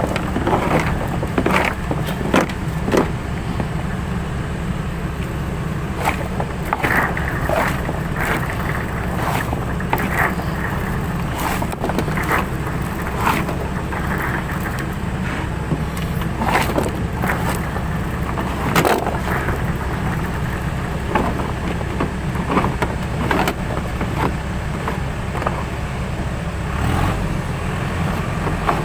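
An engine running steadily, with many short knocks and clatters over it; the engine's pitch drops near the end.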